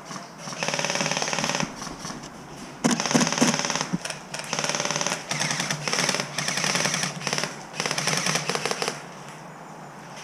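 Airsoft gun firing on full auto in about six rapid bursts, each lasting up to a second or so, with short pauses between them.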